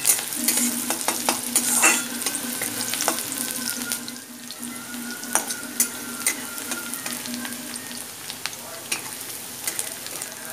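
Chopped onions sizzling in hot sunflower oil in a metal kadhai as they fry toward light brown, with a metal spatula scraping and clicking against the pan as they are stirred. The frying is louder for the first couple of seconds, then settles to a softer, steady sizzle.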